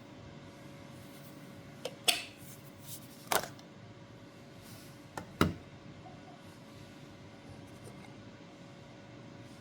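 A handful of sharp clicks and knocks from small objects being handled, in two close pairs about two seconds in and about five seconds in, with a single one between, over a faint steady hum.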